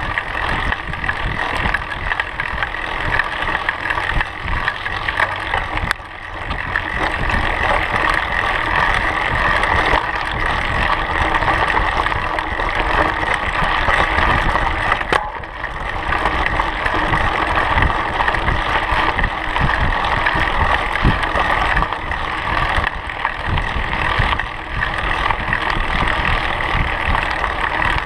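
Mountain bike tyres rolling over a gravel dirt trail, with wind rushing over the microphone of a camera riding on the bike. The noise is steady and rough, dipping briefly twice.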